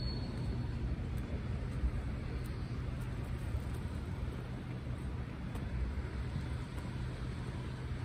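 Steady low rumble of outdoor background noise.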